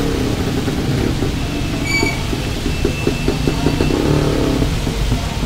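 Street traffic: motor vehicle engines running past, with a pulsing engine note from about three seconds in. A short high beep sounds about two seconds in.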